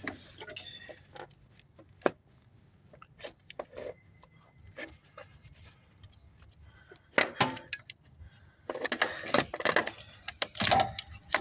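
Scattered metallic clinks and knocks of tools and metal parts being handled, sparse at first and thicker in the last few seconds, while the loosened starter motor is taken out.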